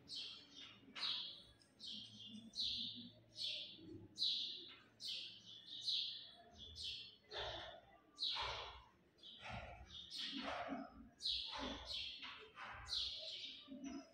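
Marker pen squeaking in short strokes on a whiteboard as a line of text is written, one or two strokes a second, with soft taps of the pen against the board.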